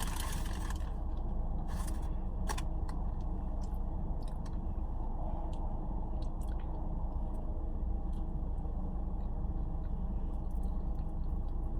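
A person chewing and biting into fast food, with faint crunches and small mouth clicks scattered through, over a steady low hum.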